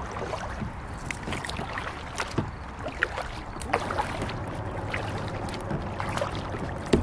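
Kayak paddling: the paddle blades dipping into calm water, with scattered short splashes and light knocks every second or so.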